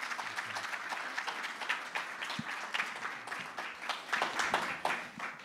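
Small audience applauding, many hands clapping together, fading out near the end.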